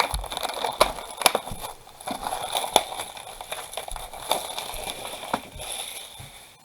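Trading card box packaging being opened by hand: plastic wrapping crinkling and crackling with many sharp clicks and rustles.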